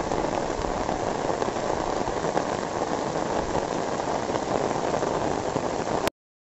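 Steady rain falling on floodwater and on an umbrella held overhead. It cuts off abruptly near the end.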